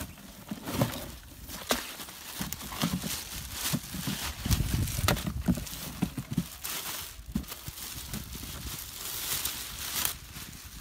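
Plastic wrapping crinkling and rustling, with scattered cardboard-box scrapes and light knocks, as a wrapped earth-auger powerhead is lifted out of its box and unwrapped.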